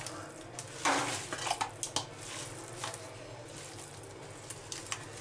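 Pieces of fish being mixed by hand in a spice marinade in a stainless steel bowl: irregular wet squelches and clinks against the bowl, the loudest about a second in.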